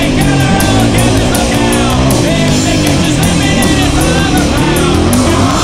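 Punk rock song playing loud and steady: singing over guitar and drums, with regular drum and cymbal hits.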